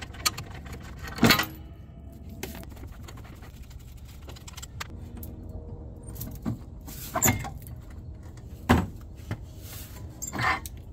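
A handful of sharp metal clanks and clinks, loudest about a second in and near nine seconds, each ringing briefly. They come from a ratchet on the lower ball joint nut and from the front steering knuckle, with its rotor and hub, being knocked and worked free of the suspension.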